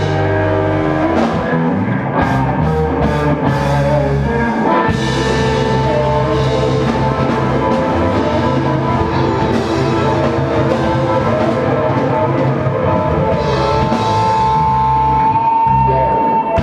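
Live blues-rock band playing without vocals: electric guitars over bass and a drum kit, with a run of cymbal crashes in the first few seconds. Near the end one guitar holds a long, sustained high note.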